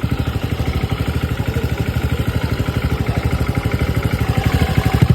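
TVS Ntorq 125 scooter's single-cylinder engine idling steadily with an even pulse and no tick or knock. The owner calls it running fine with no extra noise, now that the failed engine oil pump that starved it of oil has been replaced.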